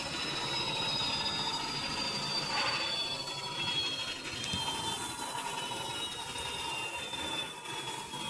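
Electrolux W555H professional washing machine running: a high motor whine that falls slowly in pitch, over a steady hum and a rough mechanical rumble.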